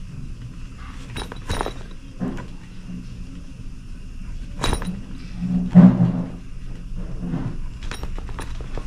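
Hands handling the fabric of an insulated delivery backpack while tying knots in hand-sewing thread at the zipper seam: rustling, with a few light clicks and a duller knock about six seconds in.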